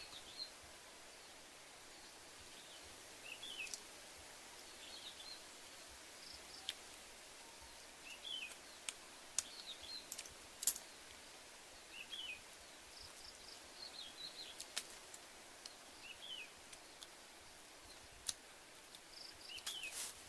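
A bird calling over and over in quiet woodland, a short two-part call, a high note then a lower falling one, every two seconds or so. Scattered sharp clicks and taps come from small shells being handled and picked at close by.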